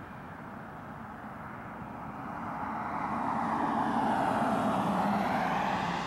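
Jet engine noise of a Boeing 737-300's CFM56-3 turbofans climbing out after takeoff: a steady rushing noise that grows clearly louder about halfway through.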